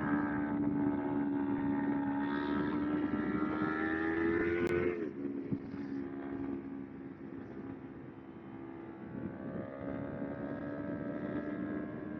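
Kawasaki Ninja 250R's parallel-twin engine running under throttle, its revs creeping up for about five seconds. The revs then drop suddenly, with a sharp click at that moment, and the engine settles to steady revs for the rest.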